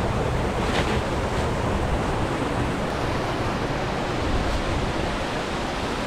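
Steady rush of falling water from a waterfall, an even hiss with no breaks.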